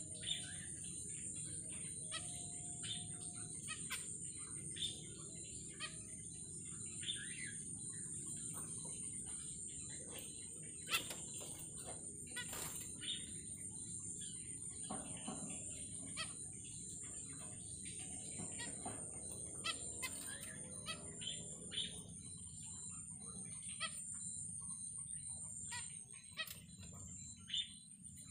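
Zebra finches giving short, scattered chirps and calls over a steady high-pitched insect trill and a low background hum.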